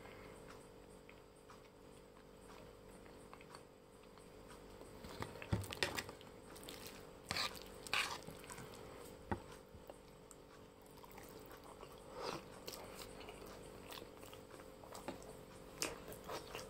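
Close-up eating sounds: chewing and biting on noodles, quiet at first, then a cluster of short sharp clicks and knocks from about five seconds in as a fork works the noodles on the plate, with a few more near the end.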